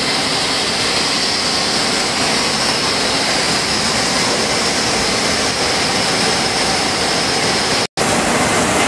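Steady machine-shop noise from industrial machinery running: an even roar with a steady high whine. It drops out for a split second near the end.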